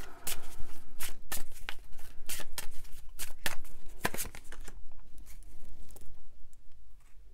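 Tarot cards being shuffled and handled by hand: a quick run of crisp card slaps and rustles that thins out after about five seconds.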